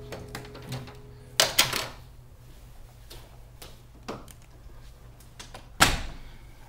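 A few sharp knocks and clicks: a quick cluster about one and a half seconds in, a fainter knock around four seconds, and one loud knock near the end.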